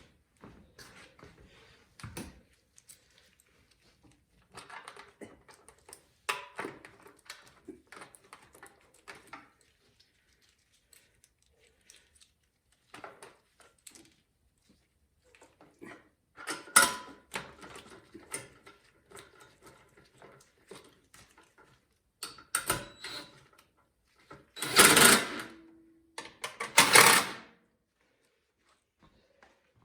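Bolts being tightened on a snowblower's cover: short bursts of rapid mechanical clicking from the tightening tool, among scattered clinks of metal. The two loudest bursts, each about a second long, come near the end.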